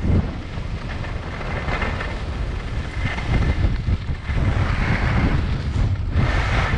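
Wind buffeting the microphone of a downhill skier, a heavy steady rumble, with the hiss of skis sliding and scraping over packed snow.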